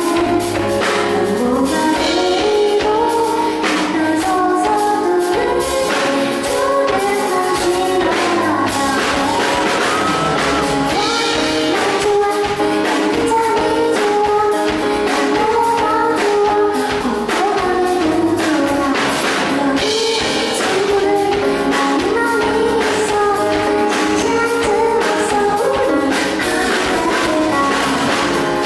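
A woman singing a slow pop song live into a microphone, accompanied by a Yamaha S90ES stage keyboard and a band with a steady percussion beat, tambourine-like.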